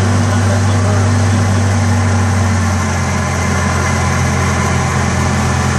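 Engine of a Chance Rides miniature zoo train running steadily as the train rolls along the track; its note changes and drops a little in level about three seconds in.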